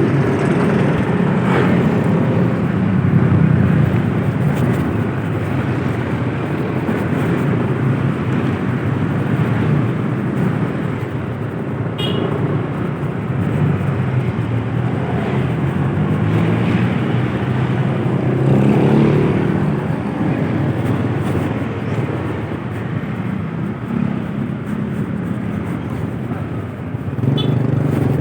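Road vehicle on the move: steady engine and road noise with wind, the engine note drifting up and down a little as it goes.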